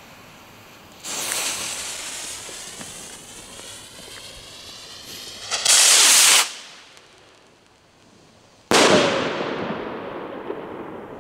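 Pyroland Dream Stalker firework rocket launching with a sudden rush about a second in that fades as it climbs. A loud, short blast of spraying sparks comes about 5.5 s in, then a sharp bang near 9 s that trails off in a long echo.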